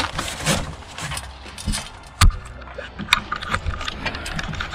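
Cardboard packaging being pulled off a solar panel and handled: scattered rustles, scrapes and knocks, the loudest knock about two seconds in.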